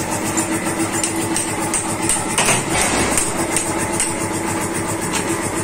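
A steady mechanical drone like a motor or engine running at idle, with a few light clicks and knocks of metal parts over it.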